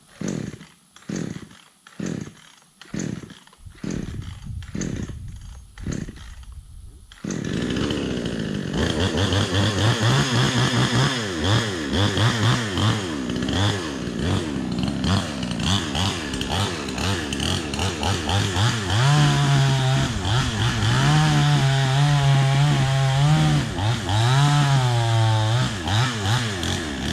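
Chainsaw pull-started with about seven short cord pulls, catching about seven seconds in, then running loud and sawing into the trunk with the engine speed rising and falling repeatedly. The saw's bar is worn and cutting crooked.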